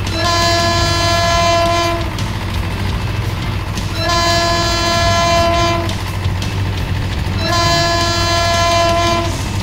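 Train horn sounding three long blasts of about two seconds each, on one steady pitch, over a steady low rumble of a running train.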